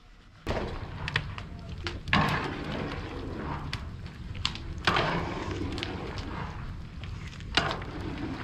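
Long-handled ladle scraping and knocking against a large metal cauldron as meat is stirred over a wood fire, with irregular sharp clicks and knocks over a steady noisy background. It starts abruptly about half a second in.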